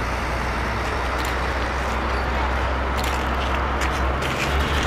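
Boeing 777F's twin GE90 turbofan engines running at taxi power: a steady jet rumble and hiss.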